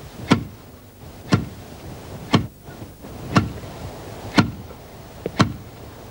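A long wooden pestle pounding into a wooden mortar, making steady heavy thuds about once a second, six strokes in all.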